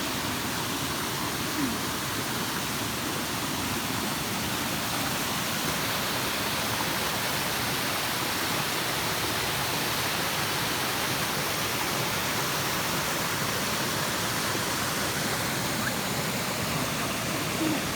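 Waterfall close by: falling water rushing in a steady, unchanging wash of noise.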